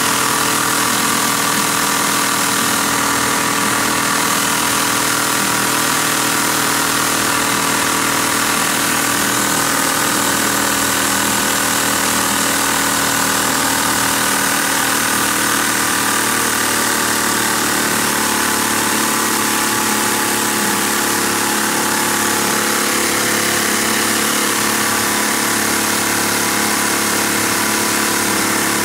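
LEGO V-twin vacuum engine running steadily and fast on the suction of a vacuum-cleaner hose at its intake, with no throttle. The hose's rush of air and the engine's running make one steady sound. The engine starts to lose a little speed from running so long.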